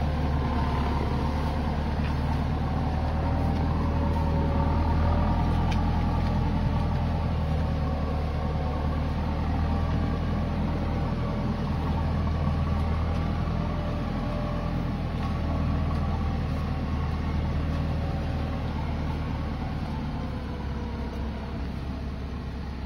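John Deere farm tractor's diesel engine running steadily under load as it pulls a loaded trailer at low speed. A higher whine rides over the low engine note, and the sound fades slightly near the end.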